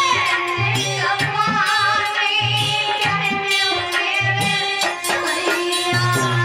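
A woman singing a Hindi devotional song (bhajan) into a microphone, her voice wavering and sliding in pitch, over steady held instrumental tones and hand-drum strokes.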